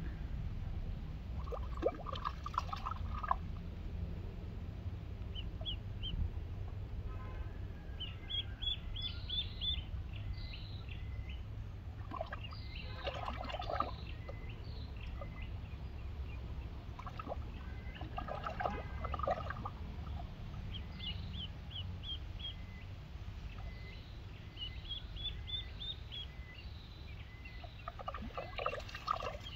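Duckling peeping in runs of quick, high calls, with a few short bursts of water sound as it paddles.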